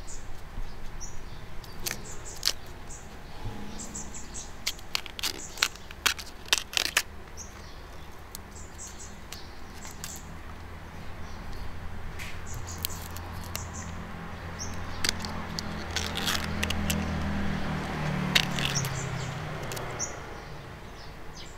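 Sheaths being peeled by hand off fresh bamboo shoots: crisp snaps and tearing in clusters a few seconds in and again near the end. Birds chirp faintly over a low steady hum.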